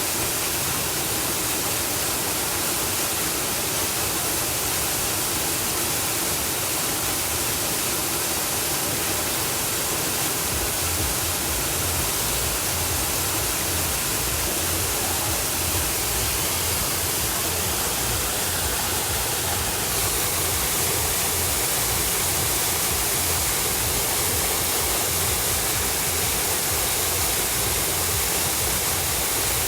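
Waterfall: a steady, even rush of falling water, with a low rumble added from about ten seconds in.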